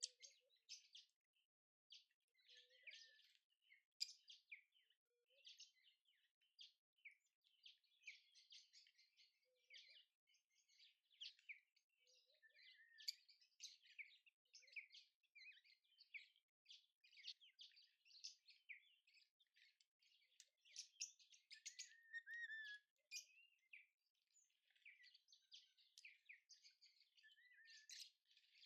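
Many small birds chirping and twittering together in a dense, continuous chorus of short, high calls, with a few faint, brief low notes now and then.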